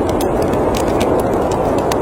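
Steady snowstorm wind noise mixed with a wood fire crackling in a fireplace, its small sharp pops coming irregularly several times a second.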